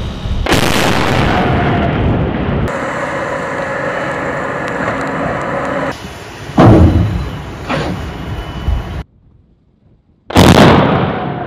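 Explosive demolition charges detonating to bring down the collapsed Key Bridge steel truss span lying across a container ship's bow. Several sudden blasts, each followed by a rumbling, falling-debris tail: one about half a second in, a loud one just before 7 s, a smaller one near 8 s, and another loud one shortly after a brief silence near the end.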